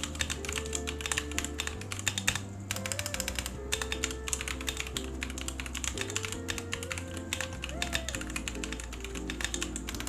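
Fast, continuous typing on an Ajazz AK680 mechanical keyboard with brown switches and double-shot PBT OEM-profile keycaps: a dense, irregular run of key clacks. Background music with sustained notes and a bass line plays underneath.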